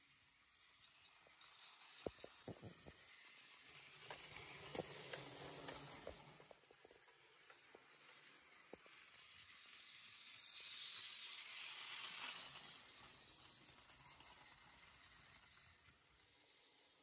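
Faint whir of a battery-powered toy train running on plastic track, with a few light clicks in the first half; the whir grows louder for a few seconds past the middle.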